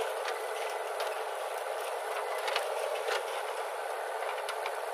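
JCB 3DX backhoe loader running while its bucket dumps soil into a tractor trolley: a steady machine noise with a few scattered clicks and knocks.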